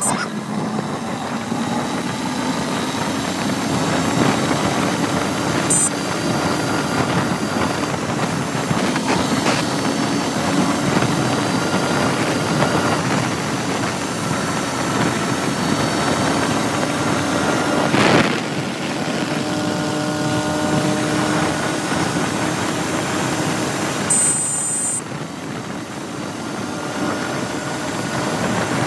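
TVS Apache RTR 160 4V's single-cylinder engine pulling the bike along a highway, rising in pitch over the first few seconds as it speeds up from about 64 to 90 km/h, then running steadily at around 90, with wind and road noise. A single sharp knock comes about eighteen seconds in.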